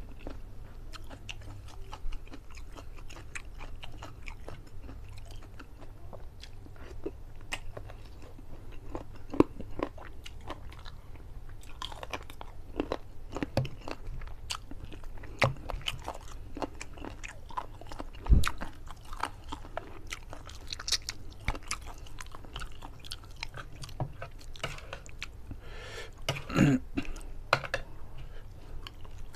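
Close-miked chewing and wet mouth smacking of a man eating chicken curry and rice by hand, with many small sharp clicks and a few louder knocks.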